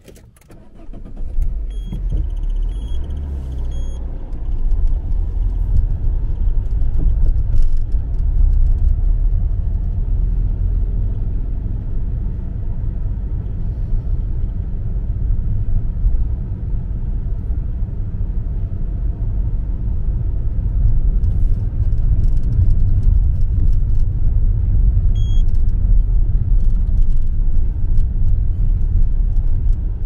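Car pulling away and driving, heard from inside the cabin: a steady low road and engine rumble that builds over the first couple of seconds. A short run of high electronic beeps comes about two seconds in, and one more near the end.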